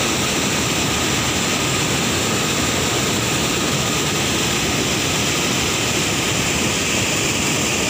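Fast whitewater churning out below a concrete sluice gate: a loud, steady rushing roar.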